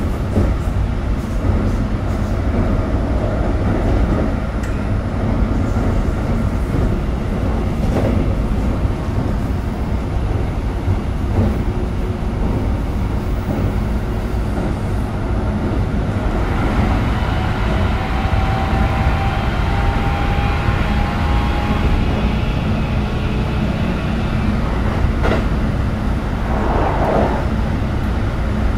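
Inside a Keikyu New 1000 series train with Siemens GTO inverter traction: steady rumble of the car running on the rails. From about halfway a motor whine joins in and slowly falls in pitch as the train slows. A couple of clacks come near the end.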